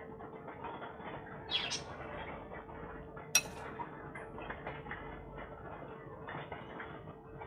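Masoor dal kofta balls deep-frying in hot oil: a steady sizzle and crackle as fresh balls go into the pan. A brief squeak about one and a half seconds in and a single sharp click a little after halfway.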